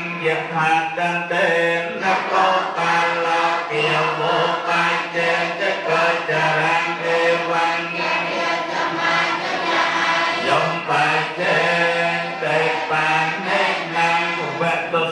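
A group of Theravada Buddhist monks chanting in unison, many low male voices held on a steady drone.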